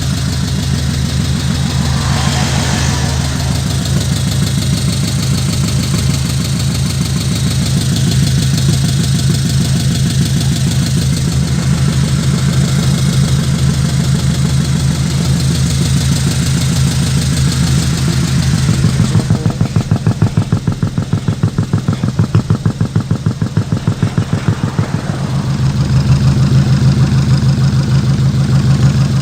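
Engine sound of an RC dump truck, a steady diesel-like idle, loud throughout. For several seconds past the middle its loudness pulses in a quick regular rhythm before settling back to a steady idle.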